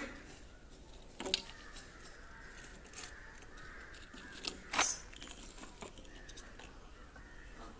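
PVC pipe and tee fittings being handled and fitted together by hand: a few short sharp plastic clicks and knocks, the loudest about a second in and again near five seconds in.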